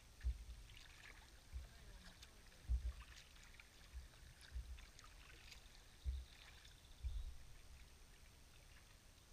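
Faint sea kayak paddle strokes: a soft low thump about once a second as each blade pulls, with light splashing and dripping water from the blades. The strokes stop about seven seconds in, leaving only the quiet hiss of the boat gliding on calm water.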